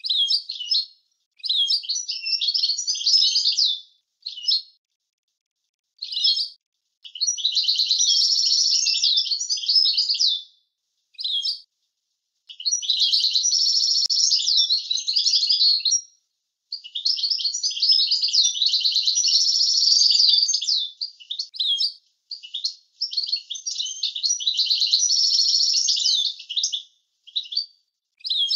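European goldfinch singing: fast, twittering and trilling song phrases lasting several seconds each, with short pauses and a few single notes between the bouts.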